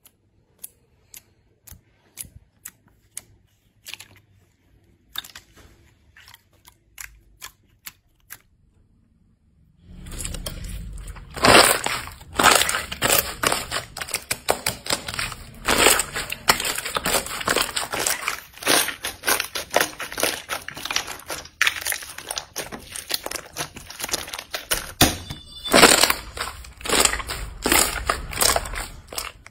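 Clear jelly slime being handled and pressed by hand, crackling and popping with trapped air bubbles. It begins as a few separate pops, and about ten seconds in it turns into a dense, continuous crackling and squelching as the slime is squeezed and scrunched.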